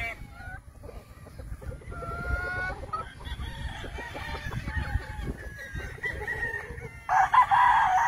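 Gamefowl chickens clucking quietly, then a rooster crows loudly about seven seconds in.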